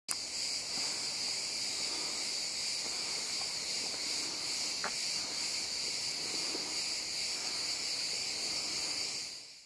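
A chorus of cicadas in the pine trees: a steady, dense, high-pitched buzz that does not let up.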